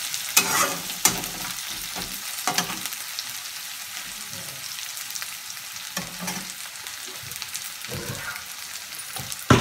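Diced potatoes sizzling in hot oil in a steel kadhai, with a flat spatula scraping and clinking against the pan now and then as they are stirred.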